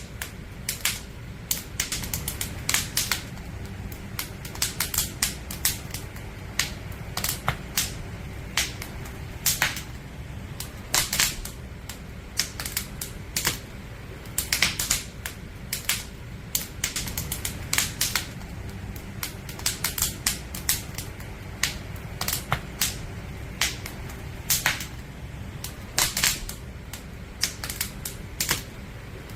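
Firewood burning in a campfire, crackling with irregular sharp pops and snaps, often in quick clusters, over a steady low rumble.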